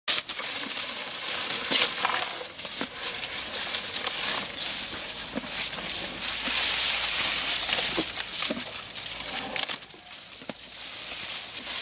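Young Asian elephant feeding on fresh green grass: rustling as its trunk gathers the stalks and crunching as it chews, with scattered crackles throughout.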